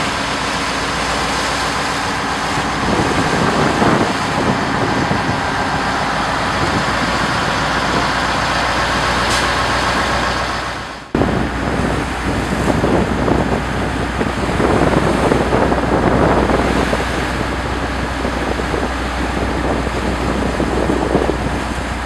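Steady, loud rushing noise of a fishing boat under way: the engine's low hum mixed with wind and water rush. It breaks off abruptly about eleven seconds in and starts again at once.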